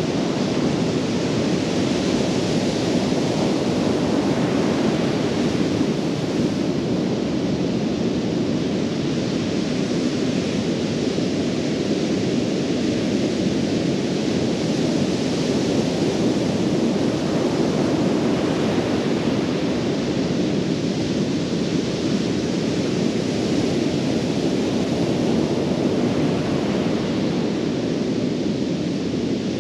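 Ocean surf breaking on a sandy beach: a steady rush of noise that swells and eases every ten seconds or so.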